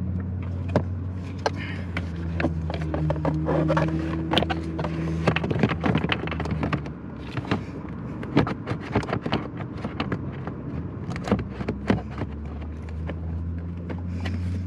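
Clicks, knocks and plastic handling noises of a replacement heater blower part being worked into place under the dash, over a steady low hum.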